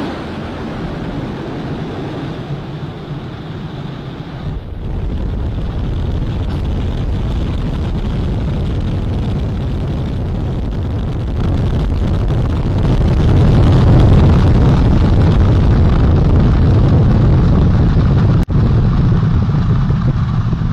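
Artemis I Space Launch System rocket lifting off, its engines and solid rocket boosters making a loud, steady low rumble. The rumble grows louder about five seconds in and again about thirteen seconds in, and the sound drops out for an instant near the end.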